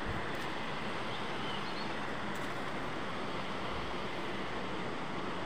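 Steady, even rush of flowing water from the waterfall and creek.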